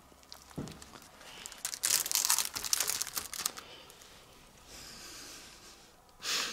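Clear plastic comic-book bag crinkling as a bagged comic is handled and slotted back into a wire spinner rack, in a dense crackly rustle about two seconds in, with softer rustles after and a short one just before the end.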